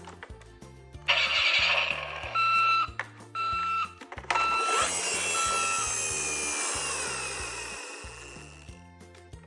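Electronic beeping over background music: a burst of hiss, then four evenly spaced steady beeps of one pitch. A rushing noise comes in under the last beeps and slowly fades away.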